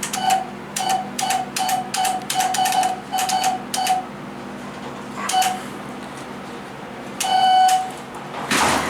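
Buttons on an Otis GAL elevator's car operating panel pressed in quick succession, each press clicking and sounding a short beep. There are about a dozen beeps in four seconds in an irregular, Morse-code-like pattern, then a single beep and one longer tone near the end.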